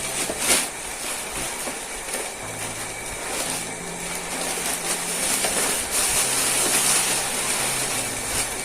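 Background music with low held bass notes that change pitch every second or two, over a steady hiss, with a single sharp knock about half a second in.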